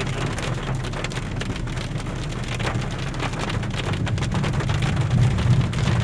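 Rain pattering on a car's windshield and body, heard from inside the cabin as many fine ticks, over the steady low rumble of the car driving on a wet road.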